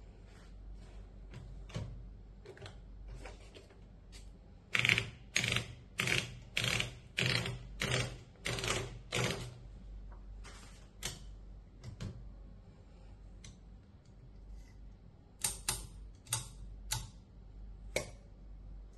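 Keys of a 1950s Royal Quiet De Luxe manual portable typewriter being struck one at a time, about two strikes a second, in uneven runs with pauses between them.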